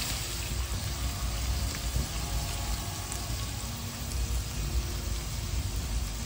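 Chicken and diced bell peppers sizzling steadily in oil in a stainless steel kadhai as they sauté.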